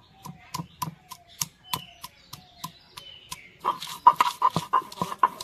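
A stone roller pounding garlic cloves on a flat stone grinding slab (sil-batta), making sharp stone-on-stone knocks about three a second. Near the end it changes to faster, rougher back-and-forth grinding strokes as the roller crushes the garlic into paste.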